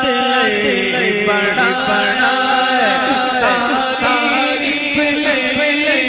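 A man singing a Punjabi naat into a microphone, holding long notes and bending them in melismatic runs over a steady low drone.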